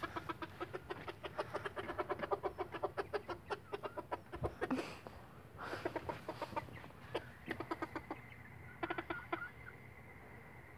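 Chickens clucking in a long, rapid run of short, soft clucks, with a couple of longer calls about five and six seconds in.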